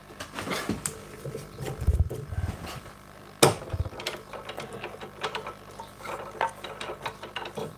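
Metal clicks and taps from hands fitting and tightening a scroll saw blade in its upper clamp, a Craftsman 22-inch scroll saw. A few heavier knocks come about two seconds and three and a half seconds in.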